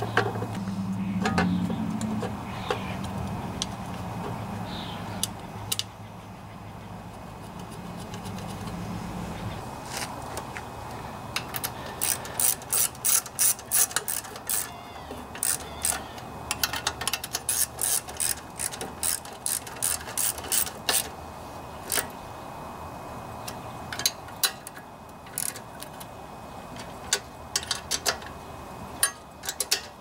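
Small hand socket ratchet clicking in quick runs as nuts are tightened onto the carburetor bolts of an air cleaner base plate. A low hum underlies the first ten seconds or so, and the clicking comes in bursts from about twelve seconds in until near the end.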